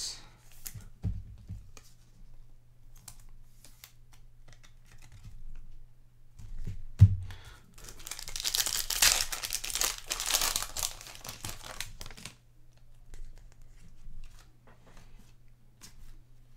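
A trading-card pack wrapper being torn and crinkled open for several seconds, starting about eight seconds in, among light clicks and rustles of cards being handled. A single knock about seven seconds in. A faint steady low hum underneath.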